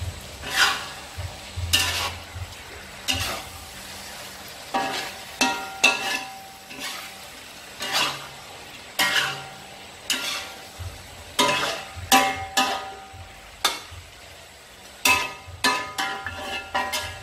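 Metal spatula scraping and clanking against a wok while frog meat and ginger are stir-fried, over a steady sizzle. The strokes come irregularly, about once a second and quicker near the end, some leaving a short metallic ring.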